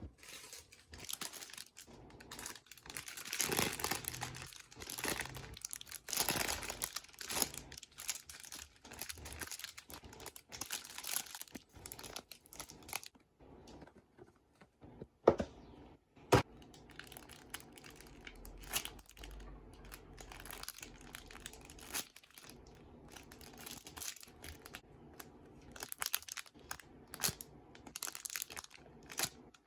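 Plastic packaging crinkling and rustling in irregular bursts as squishy toys are handled, with two sharp clicks about halfway through.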